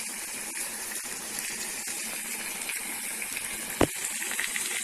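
Chicken pieces in masala sizzling steadily in a frying pan. There is a single sharp click near the end.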